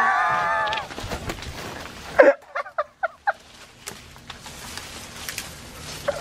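A man's drawn-out yell, then a sharp crack about two seconds in, followed by a few short snaps and the rustling of leafy tree branches.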